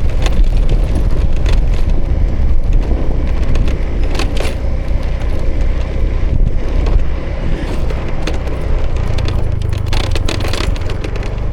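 2018 Honda Vision scooter's small single-cylinder engine running under way, heard through a loud low rumble of riding noise on the camera microphone. Scattered short clicks and rattles come through, thickest about four seconds in and near the end.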